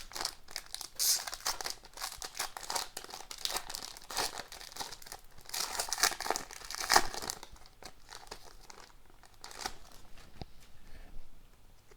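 Foil wrapper of a hockey card pack being torn open and crinkled by hand, a dense run of crackling with a sharp loud crackle about seven seconds in. It dies down about eight seconds in, leaving only faint ticks as the cards are handled.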